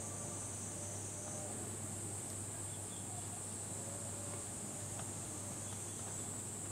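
Weak, squeaky chirping of a male Japanese rhinoceros beetle (Trypoxylus dichotomus) stridulating with his abdomen, as the male does before mating. It sits over a steady high-pitched hiss.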